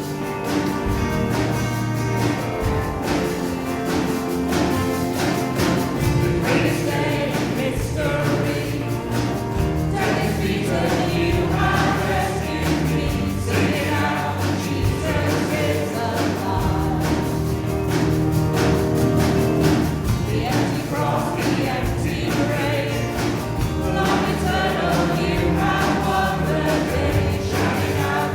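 Worship song sung by a group of voices over a band accompaniment with a steady beat.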